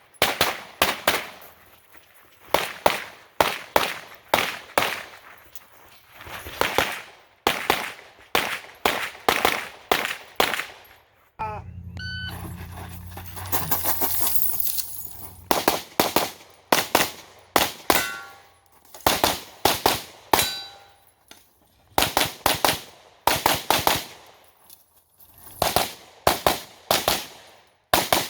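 Rapid gunfire in quick strings of shots at a practical shooting match, with metallic clangs of steel targets being hit. The shooting breaks off for a few seconds before the middle, where a steady low hum and hiss is heard instead.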